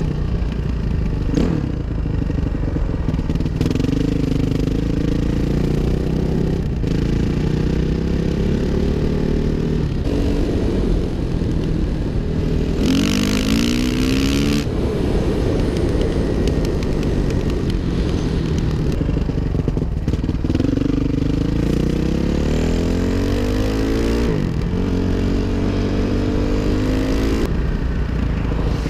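2005 Suzuki RM-Z 450's single-cylinder four-stroke engine running under load while being ridden, its pitch climbing several times as the throttle is opened and dropping back at each shift or roll-off.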